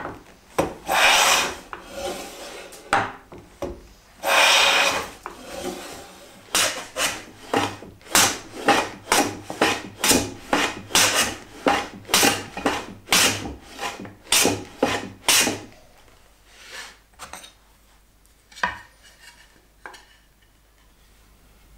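Hand plane cutting wood: two long strokes along the edges of boards clamped together, then a quick run of short strokes, about two a second, as the plane is pushed along a shooting board to trim the board ends square. A few light knocks of wood being handled near the end.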